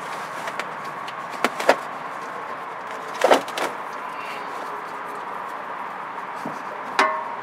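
A few scattered clicks and knocks of a plastic-handled strap oil filter wrench being worked around a car's spin-on oil filter, two close together, a louder one mid-way and one near the end, over a steady background hiss with a faint hum.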